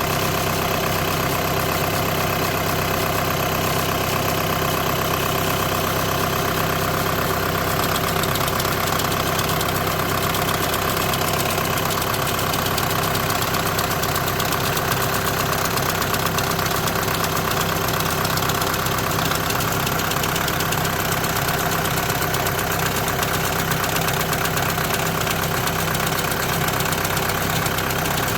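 Volkswagen car engine idling steadily with a mechanical vibration noise, which is diagnosed as a clutch fault in the DSG gearbox.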